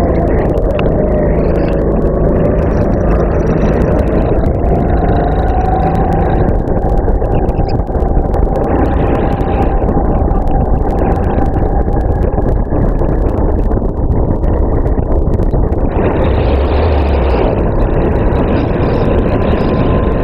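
Racing kart engine running on track, heard onboard: a loud, continuous drone over a heavy rumble. Its pitch slowly rises, eases off, and climbs again near the end as the kart's speed changes.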